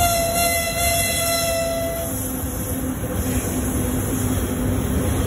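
Twin-section VL80S electric locomotive hauling a freight train sounds one horn blast of about two seconds as it passes, over the steady rumble of the locomotive and wagons rolling by.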